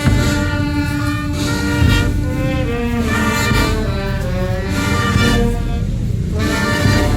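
Brass procession band playing a slow Guatemalan funeral march: held brass chords over a heavy bass line, with a loud accent right at the start and another about two seconds in.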